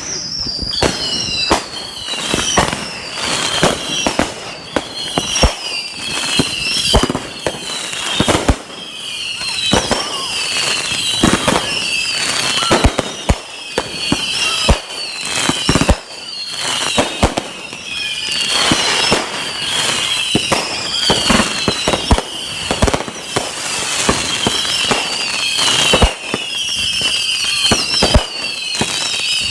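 Consumer fireworks going off continuously: a dense run of sharp bangs and crackles, overlaid with high whistles that repeatedly fall in pitch.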